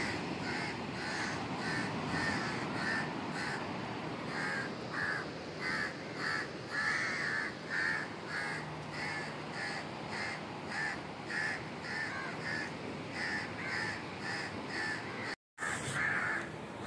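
Crows cawing over and over, about twice a second, over a steady background hiss.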